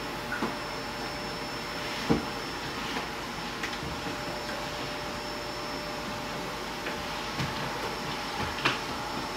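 Heavy rain and hail pouring down steadily, with a few sharp taps of stones striking close by, the loudest about two seconds in.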